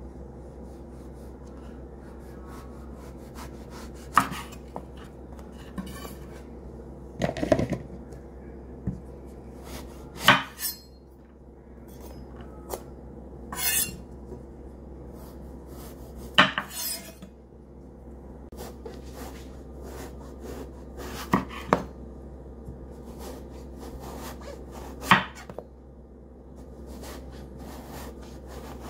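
Santoku knife slicing through a raw eggplant and knocking on a wooden cutting board. The sharp knocks come irregularly, every one to four seconds, over a steady low hum.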